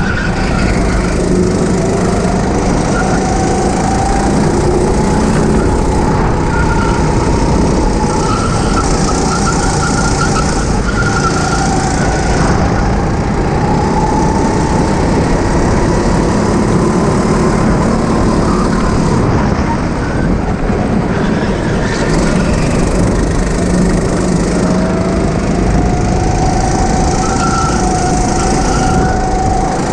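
Go-kart engine running hard, its pitch climbing slowly as the kart accelerates and dropping back, several times over, under a steady rushing noise.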